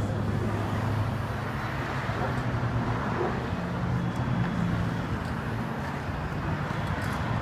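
City street traffic noise: the steady sound of vehicles, with a low engine hum.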